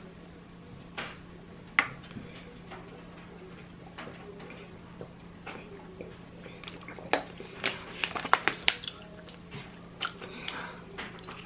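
Scattered clicks and taps of eating utensils and food containers being handled during a meal, busiest about seven to nine seconds in.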